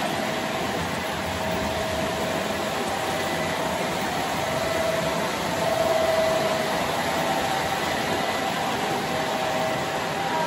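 Model trains running on the layout track: a steady rolling hum of wheels and motors with a wavering whine.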